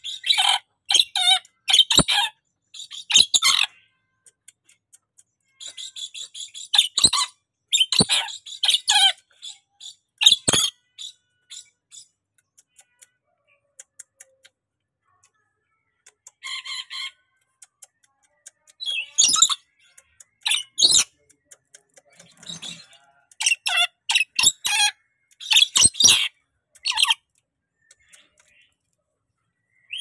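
Lorikeet giving bursts of rapid, high, shrill chirps and squawks, with quiet gaps of several seconds between the bursts.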